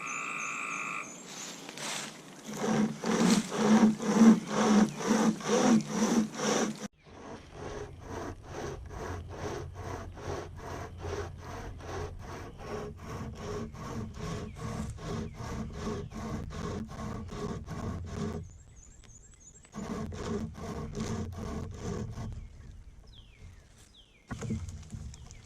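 36-inch Survival Frog pocket chainsaw, a hand-pulled cutting chain, sawing through a hardwood branch in quick back-and-forth strokes, about two or three a second. The strokes pause briefly twice near the end before starting again.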